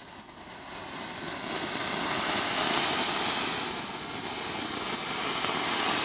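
Multi-colour anar (flower pot fountain firework) spraying sparks with a steady rushing hiss that builds over the first two seconds, eases a little around four seconds and swells again near the end.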